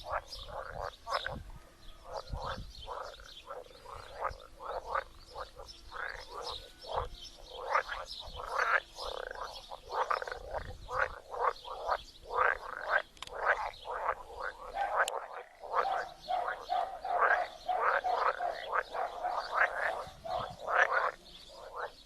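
Spring chorus of many pond frogs croaking, their short calls overlapping and repeating rapidly without a break.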